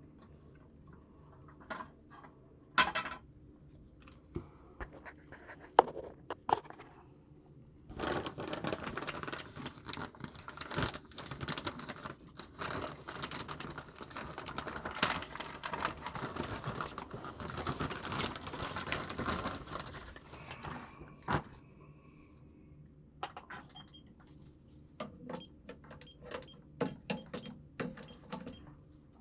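Handling noise: scattered sharp clicks and clinks of small hard objects, with about twelve seconds of continuous scraping rustle in the middle.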